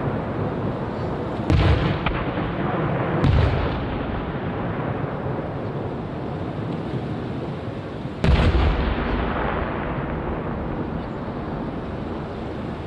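Aerial fireworks shells bursting: three sharp booms, about a second and a half in, just over three seconds in and about eight seconds in, each trailing off in a long rolling echo over a continuous rumble.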